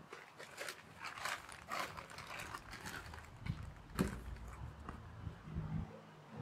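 Short rustles and clicks as a green push-along lawn spreader and a plastic tub are handled, with one sharper knock about four seconds in.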